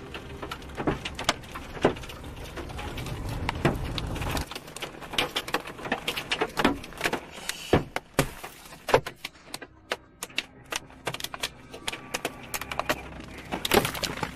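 Irregular sharp knocks and taps, several a second, of things striking a car's body and windshield in a storm. A low rumble underneath stops about four and a half seconds in.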